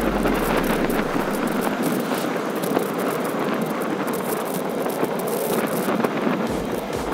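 Steady rushing noise of a bicycle riding along a paved path, mostly wind on the microphone, with a low wind rumble that drops away about two seconds in and comes back near the end.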